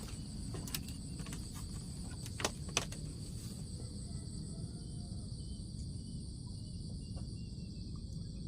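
Steady high-pitched insect chirring over a constant low rumble, with a few sharp clicks in the first three seconds, two of them louder about two and a half seconds in.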